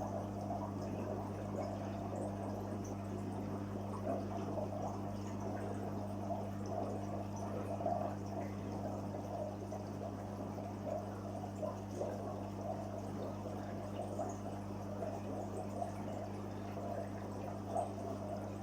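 Water steadily trickling and splashing into a koi fry tank, with small irregular drips, over a steady low electrical hum such as a pump's.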